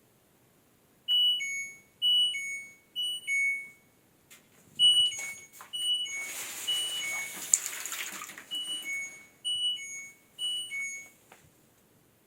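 LG F80C3LD washing machine's control panel beeping in repeated falling two-note pairs, the machine misbehaving with the fault its owner calls a glitch. A rushing hiss rises for a couple of seconds in the middle, under the beeps.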